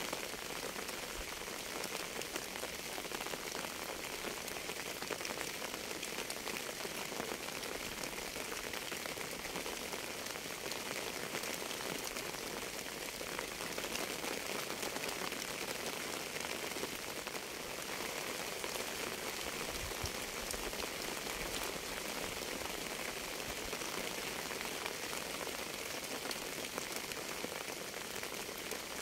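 Steady rain falling on a surface: an even hiss of many drops that does not let up.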